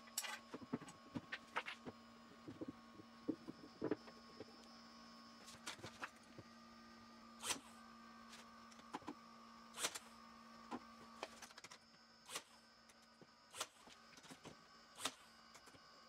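Brad nailer driving brads into pine boards: a dozen or so sharp, faint shots at uneven intervals.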